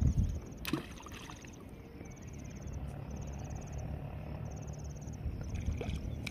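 Insects trilling steadily in repeated pulses, with a low thump at the start and a short sharp splash just under a second in as the weighted hook of a thrown fishing handline hits the river.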